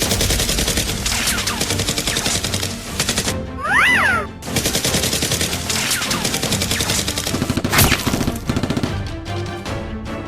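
Rapid-fire gunfire sound effects, bursts of quick shots, layered over background music. About four seconds in, the shots break for a short pitched sound that rises and falls. A sharp loud hit comes near the eight-second mark, and after it the music carries on alone.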